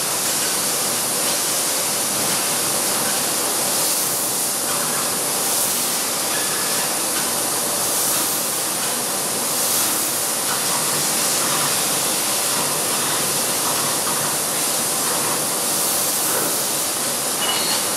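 LVD Axel Linear 4 kW laser cutting machine cutting holes in sheet metal: a loud, steady hiss of the assist-gas jet at the cutting head, with the machine running under it.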